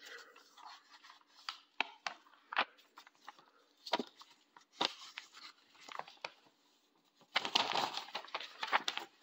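Paper model-kit instruction sheet being unfolded and handled: scattered sharp paper crackles, then a longer stretch of rustling near the end.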